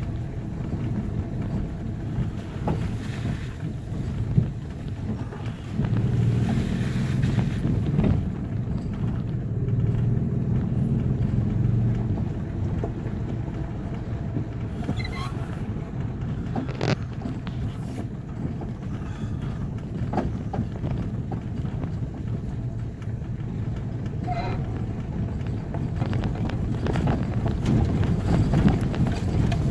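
Cabin noise of a Toyota FJ Cruiser driving a rough gravel forest road: a steady low rumble of engine and tyres, swelling louder a few times, with scattered knocks and rattles over bumps.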